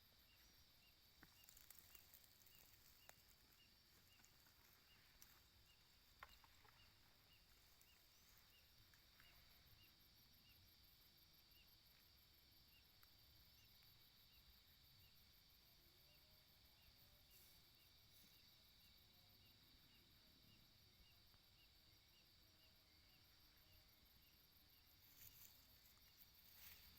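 Near silence with a faint night-time insect chorus: a steady high-pitched drone and a soft regular chirp about twice a second.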